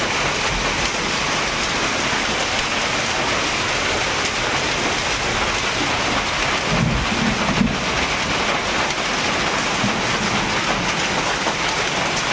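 Heavy rain mixed with hail falling steadily: a dense, even hiss of drops and hailstones striking the ground.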